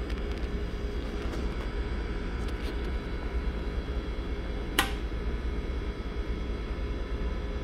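A single sharp click of a Boekel Rocker II laboratory rocker's power switch being pressed just under five seconds in, over a steady low hum.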